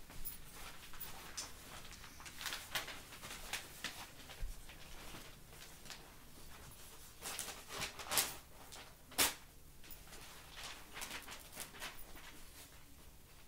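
Newspaper pages rustling and crackling in short, sharp crinkles as a corgi puppy noses at them, the two loudest crackles about eight and nine seconds in.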